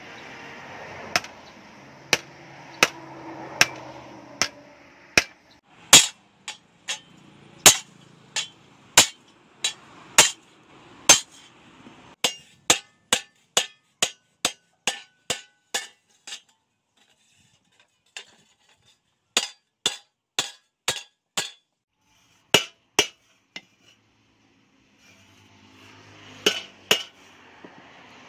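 Hammer blows on the steel of a plough disc on an anvil as it is forged into a shovel: a long series of sharp, ringing strikes, coming faster about halfway through, with two short pauses.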